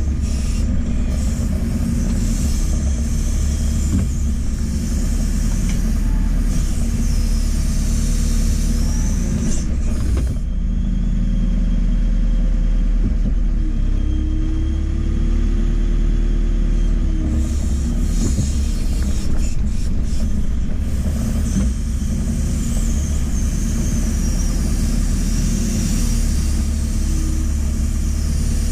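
JCB 4CX backhoe loader's diesel engine running steadily under working load, a low rumble with a faint whine that rises slightly for a few seconds midway.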